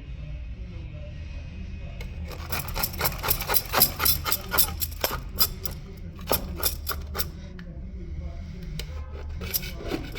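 Scraping strokes on a marble stair, about three or four a second, working stripper-softened old glue off the stone. The strokes come in runs with short pauses between.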